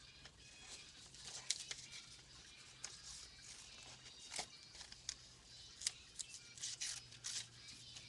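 Paper strips and tape being handled, giving faint, irregular crinkles, rustles and sharp clicks, over a steady low hum.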